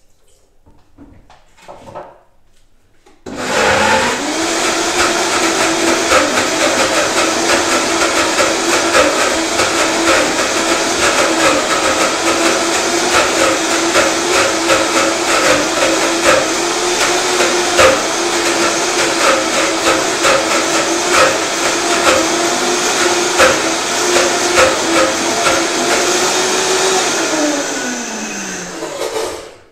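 Electric blender switched on about three seconds in, its motor running steadily with a pitched hum and small clicks as it purees a thick date-based chocolate cream. Near the end the motor is switched off and its pitch falls as it spins down.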